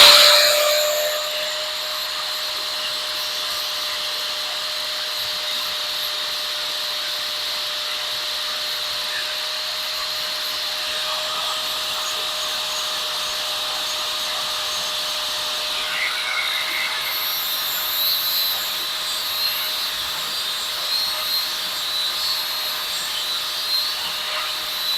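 Small rotary power tool running at a steady high-pitched whine while smoothing tool marks off a stainless steel fork piece. In the last third, uneven scratchy sounds as the spinning bit meets the metal.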